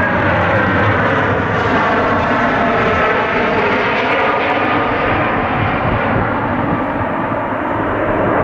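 Boeing 747-400's four turbofan engines at approach power as the airliner passes low on final approach with gear down: a loud, steady jet rumble with whining tones that slide slowly lower as it goes by, the high hiss easing off in the last few seconds.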